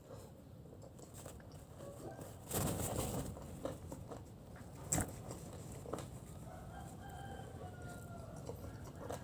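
A rooster crows faintly in the background in the second half, one long call. Earlier come a short burst of crunching and a sharp click, from eating fried chicken close to the microphone.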